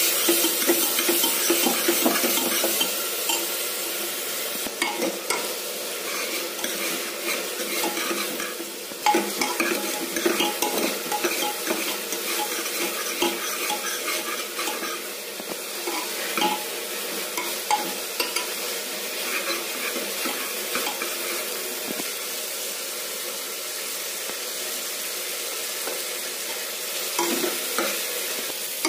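Chopped vegetables sizzling as they fry in a pressure cooker, stirred with a spatula that scrapes and taps against the pot. The sizzle is a little louder in the first few seconds.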